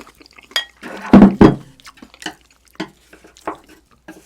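Eating utensils clinking and scraping against dishes, in scattered short clicks, with a pair of loud dull thuds a little over a second in.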